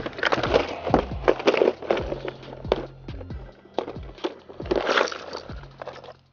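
Background music with a beat, over steady low tones.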